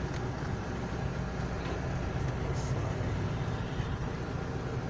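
Steady engine and road rumble inside a moving car's cabin.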